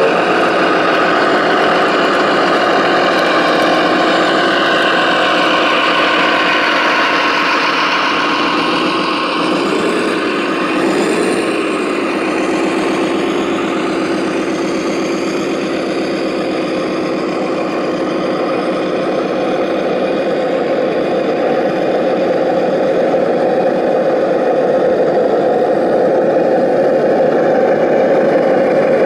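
Engine sound of radio-controlled heavy machine models, a steady idling diesel note, with a brief rise and fall in pitch about ten seconds in.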